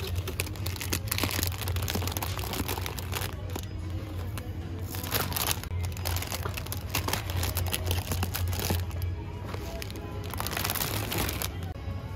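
Packaging crinkling in several bursts over background music.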